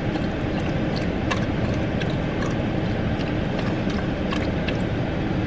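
A dog lapping water from a bowl: quick wet clicks about three a second, stopping near the end. Under it is the steady low rumble of the car idling.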